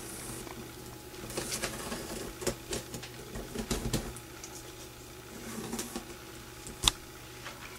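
Faint, irregular scratching and rustling of a pen tracing around a white-painted twig wreath on scrapbook paper, the twigs rubbing against the paper, with scattered small ticks and one sharp click near the end.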